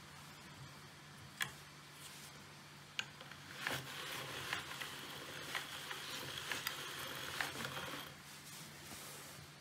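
Hand-cranked noodle cutter turning as a sheet of homemade pasta dough passes through its rollers: a steady mechanical rubbing with a click about once a second, starting a few seconds in and stopping near the end. A couple of sharp handling knocks come before it, over a faint low hum.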